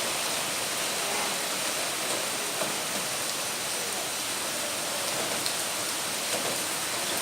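Steady heavy rain falling, a dense even hiss of drops hitting the ground and surfaces.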